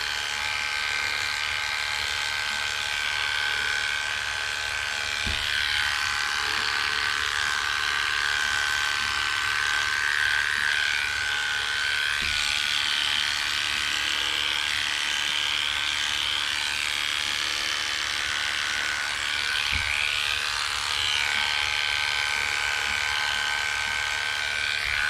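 Electric dog grooming clippers running steadily as they trim a dog's coat, a continuous motor hum and buzz whose pitch wavers slightly as the blade meets the fur.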